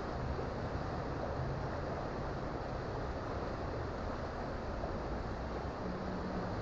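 Creek water running steadily, a constant rushing noise with no breaks.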